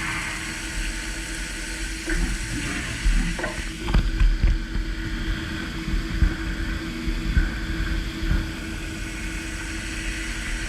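DMG MORI M1 CNC vertical milling machine cutting a steel part: a steady spindle tone under a continuous spray-like hiss, with irregular knocks and rattles from about two to four seconds in.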